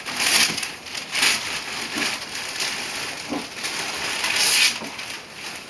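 Plastic bag and gift wrapping crinkling and rustling in several loud bursts as a cardboard box is handled.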